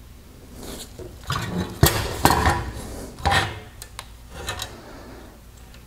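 Hard plastic headlight parts, a clear light-guide housing with its LED circuit board, being handled and knocked about on a wooden workbench: a few seconds of scraping, clicks and clatter, loudest about two seconds in.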